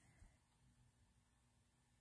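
Near silence: faint room tone, with one small tick a moment in.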